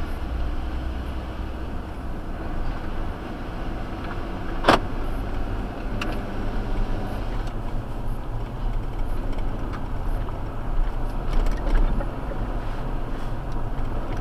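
Vehicle running with a steady low rumble and road noise, and one sharp clank about five seconds in.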